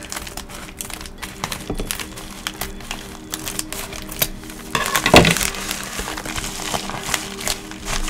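Packaging being opened by hand: rustling and crinkling with many small clicks, and a louder burst of rustling about five seconds in.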